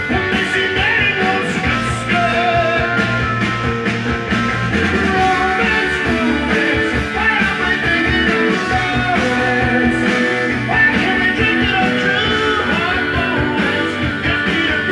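Music with guitar and singing played from a vinyl record on a Dual 521 turntable, running steadily without a break.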